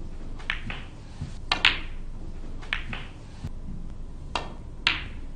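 Snooker balls clicking as shots are played: sharp clicks of the cue tip on the cue ball and the cue ball on an object ball, in four close pairs.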